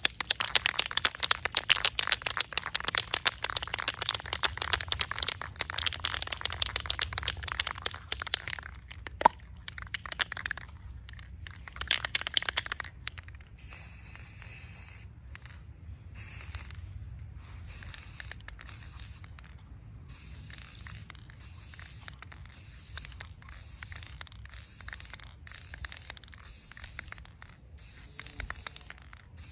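Aerosol spray-paint can shaken hard, its mixing ball rattling in quick clicks for about thirteen seconds with a short break partway through. Then the nozzle hisses in one longer burst, followed by a dozen or more short bursts of about half a second each as paint is sprayed onto a tumbler.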